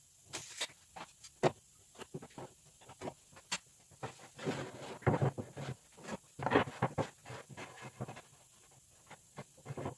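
Irregular light knocks, taps and short scrapes, with longer scraping stretches about halfway through and again a little later.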